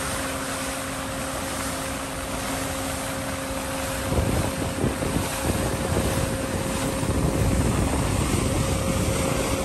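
Rushing water of a ship's bow wave as the hull pushes through the sea, with wind on the microphone and a steady hum underneath. About four seconds in, the low wind rumble gets heavier and gustier.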